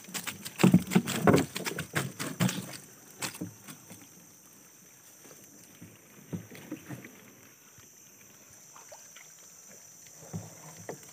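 Collapsible net prawn traps being hauled and handled against a small boat's hull: a rapid clatter of knocks and rustling for about the first three seconds, then only a few scattered knocks.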